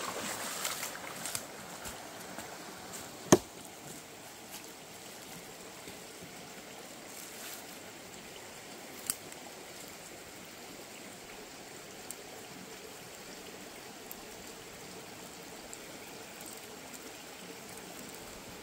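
Steady rushing of a shallow rocky stream, with water splashing around wading legs in the first second or so. A single loud, sharp knock cuts through about three seconds in, and a smaller one near the middle.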